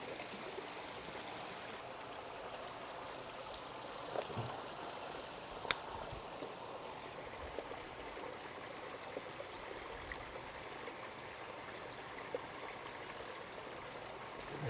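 Stream water flowing steadily, with a single sharp click about six seconds in.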